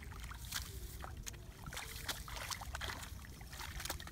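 Hands groping and stirring in shallow muddy water: irregular small splashes and sloshes, over a steady low rumble.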